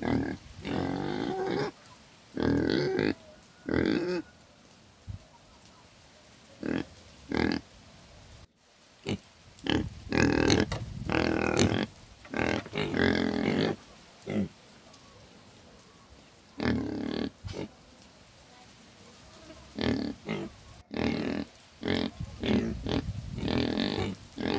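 Pig grunting in irregular bouts of rough calls, some short and some drawn out over a second or two, with short pauses between them.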